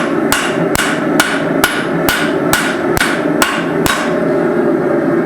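A cross-peen hand hammer striking a hot steel hammer head on the anvil, with a drift in its eye, to draw out the cheeks. It lands about ten evenly spaced ringing blows, about two a second, and stops about four seconds in. A steady background hum runs underneath.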